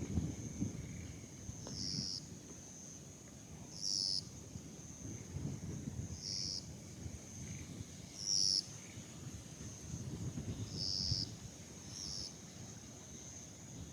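Night insects calling on a summer night: one keeps up a steady high trill, while another repeats short high chirping bursts roughly every two seconds.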